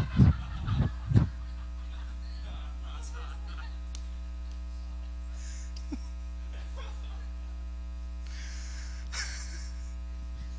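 Steady electrical mains hum on the sound system, with a few short loud sounds in about the first second and a faint brief hiss near the end.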